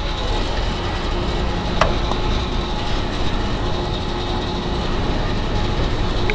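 Steady mechanical hum and rumble of a petrol station fuel dispenser pumping petrol into a motorcycle's tank, with a single click about two seconds in.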